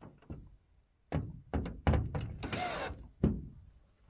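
A series of knocks and clunks from handling tools and panels during repair work on a roof shade, with a short noisy burst about two and a half seconds in.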